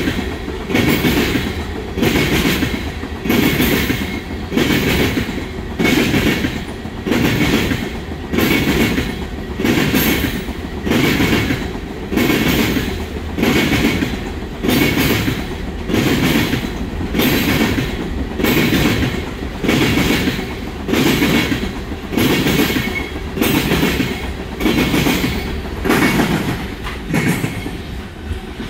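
Freight train of railroad tank cars rolling past, the wheels clacking over rail joints in an even rhythm of about one loud clack a second.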